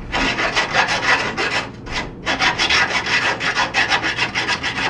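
Half-round metal file rasping back and forth inside a rusted leaf-spring bushing hole, scraping out corrosion left after the old bushing sleeve came out. Quick strokes, several a second, with a short pause about two seconds in.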